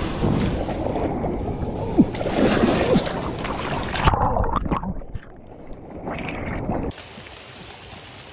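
Loud rushing of fast-flowing creek water with wind on the microphone and a few knocks, thinning out about four seconds in. About seven seconds in it cuts abruptly to a steady, high insect drone.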